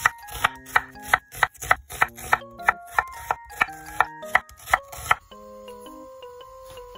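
Kitchen knife slicing an onion into strips on a wooden cutting board: a steady run of sharp knocks of the blade meeting the board, about three a second, stopping about five seconds in. Background music plays throughout.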